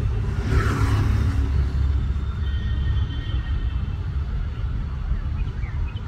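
A steady low outdoor rumble that swells briefly about a second in, with a few faint high chirps near the end.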